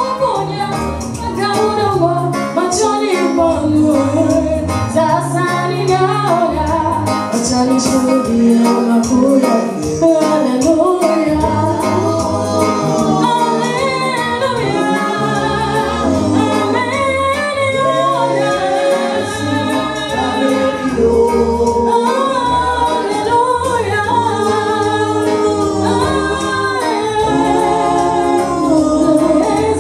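Live gospel vocal group singing through microphones: a woman's lead voice with several backing singers in harmony, over a steady bass line.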